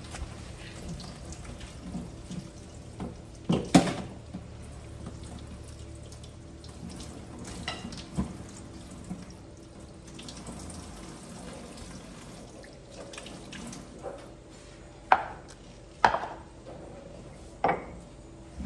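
Kitchen tap running into a steel sink while raw chicken pieces are washed by hand under it. Sharp knocks come about four seconds in and three more near the end.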